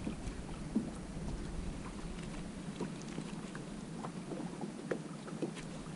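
Water lapping against a fishing kayak's hull, with scattered light clicks and taps.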